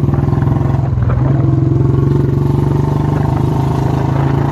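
Royal Enfield Classic 350's single-cylinder engine running under way on a rough road, its pitch stepping up slightly about a second in and then holding steady.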